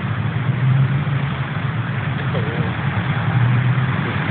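Steady low rumble of motor traffic, like car engines running nearby.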